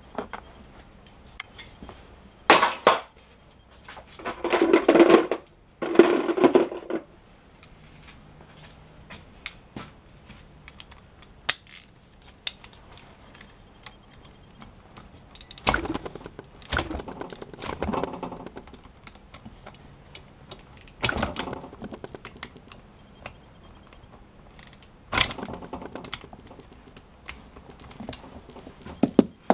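Hand tools and metal parts of a Honda 125 SOHC engine being handled during a top-end strip: scattered metallic clinks, taps and knocks, with two longer noises of about a second each, around four and six seconds in.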